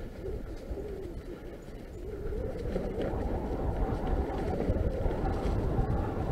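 Full-suspension mountain bike, a Norco Fluid FS3, rolling along leaf-covered dirt singletrack: a steady rumble of tyres and trail noise that grows louder about two seconds in.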